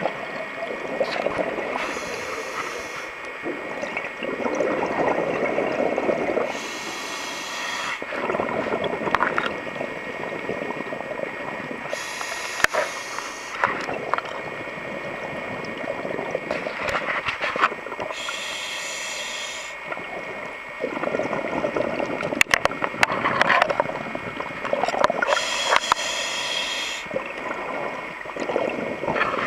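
Scuba diver breathing through a regulator underwater: a sharp hiss on each inhale, then a longer burst of bubbling on each exhale, about five breaths repeating every five to six seconds.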